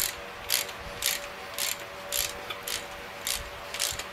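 Ratchet wrench clicking in short bursts about twice a second as it is swung back and forth, running down the connecting-rod cap nuts.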